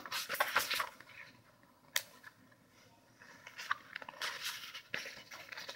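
Paper pages of a picture book rustling and flipping as it is opened and handled, in scattered soft clicks and rustles with a quiet stretch midway.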